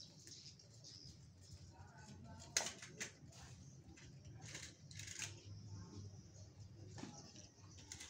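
Faint scattered clicks and knocks, the loudest a sharp click about two and a half seconds in, over a quiet background.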